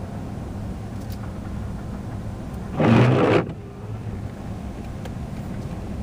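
Steady engine and tyre noise heard inside a car driving on a snow-covered road in blizzard winds. A short, loud rush lasting about half a second comes about three seconds in.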